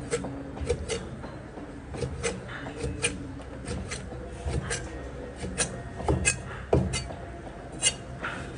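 Cleaver chopping pork stomach on a thick plastic cutting board: irregular knocks of the blade through the meat onto the board, about two a second, with a few louder chops in the second half.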